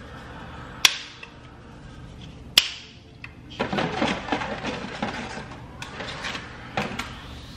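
Dry lasagna noodles being snapped into pieces by hand: a few sharp cracks, one about a second in and another near three seconds, with handling noise between.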